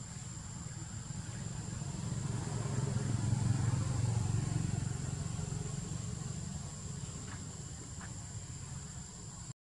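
A low rumble that swells over the first few seconds and slowly fades, over a steady high-pitched whine, with two faint clicks near the end.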